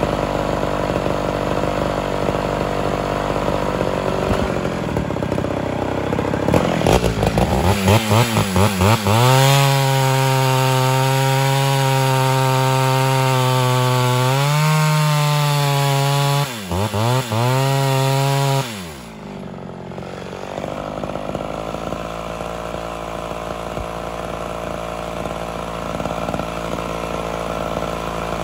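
Ported Homelite Super XL Auto two-stroke chainsaw idling, then blipped up and held at full throttle while cutting through a firewood log. Its pitch steps up partway through the cut, and after a few more revs it drops back to idle for the last third.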